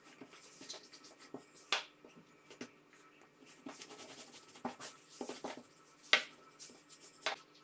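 Thin wooden rolling pin rolling out stacked sheets of floured yeast dough on a silicone mat, giving soft scattered clicks and taps as the pin and hands move, with a few sharper clicks, the loudest about six seconds in.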